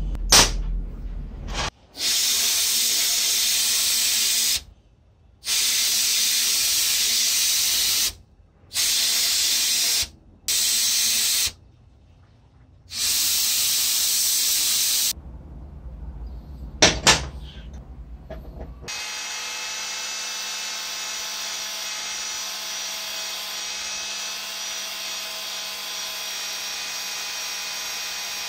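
Paint sprayer hissing in five bursts of a few seconds each, with short pauses between. A couple of sharp clicks follow, then from about two-thirds of the way in a grinding wheel runs steadily while the tip of a steel chisel bit is held against it.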